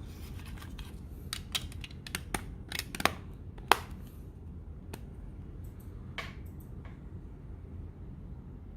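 Small phone accessories and their packaging being handled on a hard surface: a quick run of light clicks and taps, one sharper click near the middle, then a few fainter taps.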